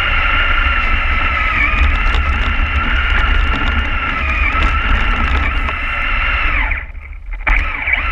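Radio-controlled truck's motor and gears whining steadily at speed, heard close up from a camera mounted on the truck, over a low rumble. Near the end the whine sags in pitch and drops away for under a second, then picks up again.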